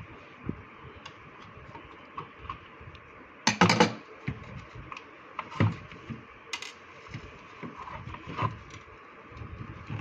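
Hard plastic clicks and knocks as a refrigerator's plastic control housing is worked loose and handled, with a brief louder rattling clatter about three and a half seconds in and a few more sharp knocks after it. A steady faint hiss runs underneath.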